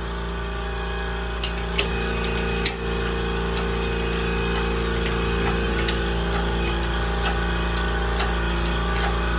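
A steady mechanical hum with a fast even pulse, and a handful of sharp metallic clicks and clinks scattered through it, the loudest about two and three seconds in, as the engine is worked on the hoist.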